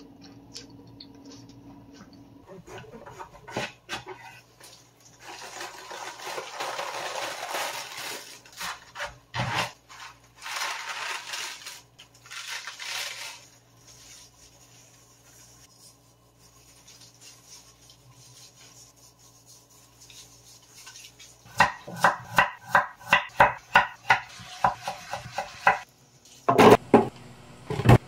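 Kitchen prep sounds: crisp rustling and crunching of napa cabbage leaves being handled and salted, then a run of about ten sharp, evenly spaced knocks, about two a second, and a loud clatter near the end as pieces go into a plastic blender jar.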